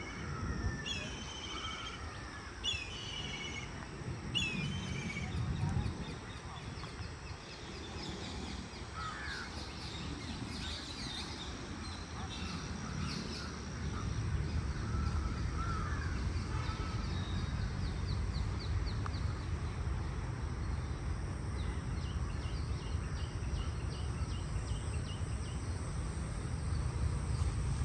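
Several birds calling and chirping, with short sliding calls in the first few seconds and quick chirp series later, over a low steady rumble that grows louder about halfway through.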